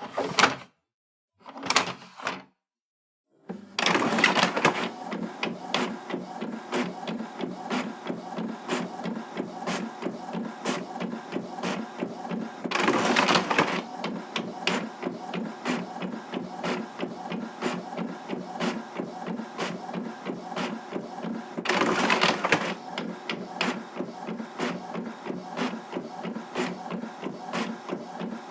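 Office printer running: a steady mechanical hum with rapid fine ticking, swelling louder around 13 and 22 seconds in. Before it starts, about four seconds in, there are a few short separate sounds with dead silence between them.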